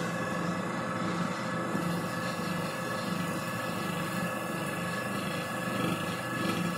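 Malhar MD-AC-1 1 hp single-phase electric LPG diaphragm pump running, its enclosed fan-cooled induction motor giving a steady hum with a few constant tones over it.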